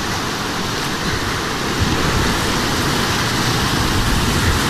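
Whitewater rapid on a flooded river rushing and splashing around a kayak, growing louder about two seconds in as the boat enters the waves.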